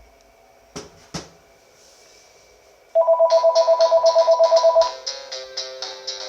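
Two short clicks, then a Panasonic DECT cordless phone ringing with an incoming call: a loud, rapid two-pitch electronic trill for about two seconds, then a melodic ringtone.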